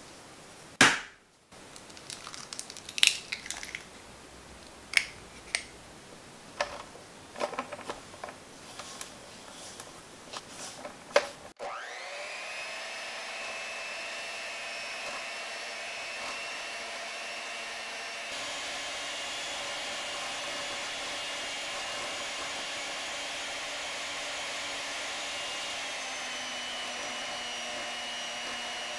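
Electric hand mixer starting with a quick rising whine, then running steadily as its beaters whip sugar, egg and butter in a glass bowl. Before it starts, a series of sharp knocks and clicks, the loudest sounds here.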